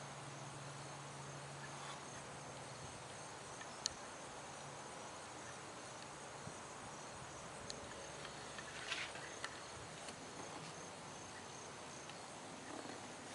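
Faint steady hiss with thin high tones, a sharp click about four seconds in and a brief cluster of small clicks and rustling near nine seconds.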